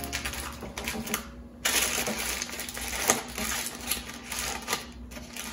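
Heavy-duty aluminium foil being scrunched and folded closed by hand, a dense crinkling crackle with a short pause about a second in and one sharp crackle around the middle.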